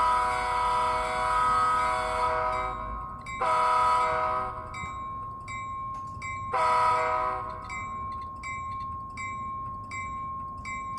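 Sampled locomotive air horn from a LokSound sound decoder in a model Metra bilevel cab car: one long blast, then two shorter ones, over the decoder's bell ringing steadily at about one and a half strokes a second.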